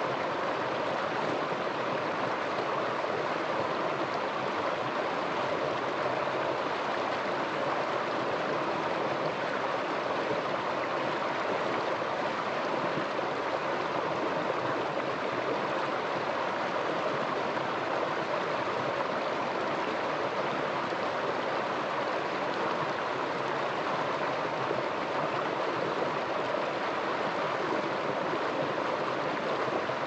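Small rocky mountain stream cascading and splashing over rocks in a steady, unbroken rush of water.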